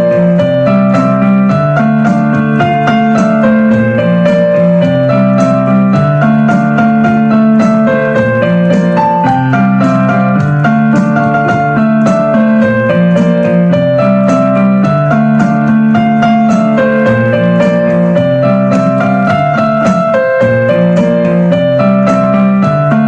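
Background music played on piano or electric piano, with a repeating chord pattern and a melody over it.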